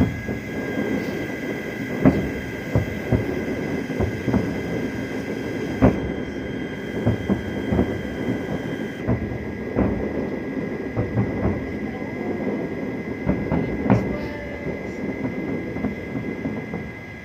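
Fireworks going off at a distance: a continuous low rumble of overlapping booms, with sharper bangs every second or two. A faint steady high-pitched whine runs underneath.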